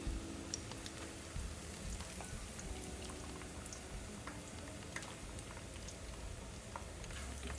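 Breaded chicken balls frying in hot oil: a steady sizzle with scattered small crackles and pops.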